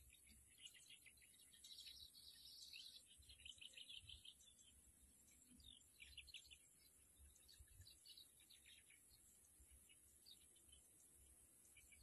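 Faint bird chirping: quick runs of high twittering notes, busiest in the first few seconds and again around the middle, over a steady high hiss.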